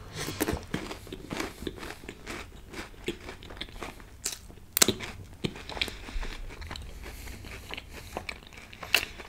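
Close-miked chewing of a crunchy mouthful coated in Nutella and vanilla mousse, with many sharp crunches throughout. The loudest crunches come just before the middle and near the end.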